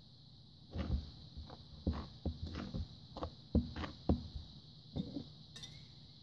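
Metal spoon stirring flour mixture in a bowl as wet ingredients are worked into the dry for bread dough: about a dozen irregular scrapes and knocks of the spoon against the bowl, over a steady faint high hiss.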